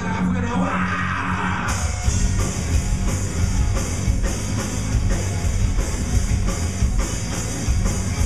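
Live rock band playing: electric guitars and bass over a drum kit. The guitars play a strummed part at first, and the drums and cymbals come in with the full band a little under two seconds in, keeping a steady beat.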